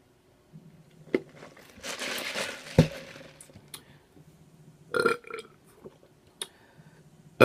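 A woman burping loudly several times: a long, airy one about two seconds in, another about five seconds in, and a short sharp one at the end.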